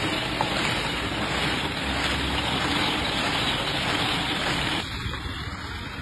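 Steady rushing noise of a roller ice cream machine running, its frosted chilled drum turning as syrup is poured onto it. The noise drops in level about five seconds in.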